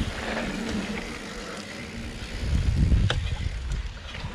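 Riding noise from an electric mountain bike on a dirt trail: tyres rumbling and wind buffeting the chest-mounted camera, with a louder gust of rumble about two and a half seconds in and a sharp rattle or click just after.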